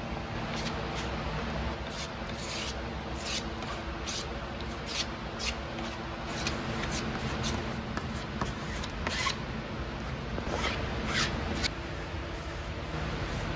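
Irregular short scraping strokes of a brush spreading glue over an MDF panel, with the rustle of a fabric covering being handled and smoothed on, over a steady low hum.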